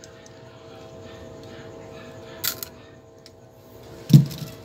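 Pliers snipping the electrical wire of a lamp socket once, a short sharp snip about halfway through. Near the end comes a thud, louder than the snip, as the pliers drop onto the floor of the wooden incubator box.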